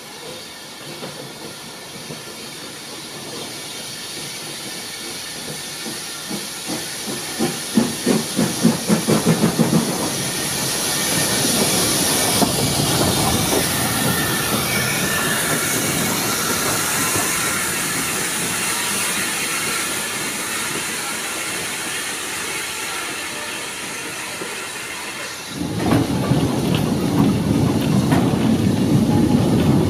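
Steam tank locomotive passing close on the adjacent track: its exhaust beats build to about three a second, then a long steady hiss of steam as it goes by. About 25 seconds in, the clatter and rumble of its carriage wheels starts suddenly.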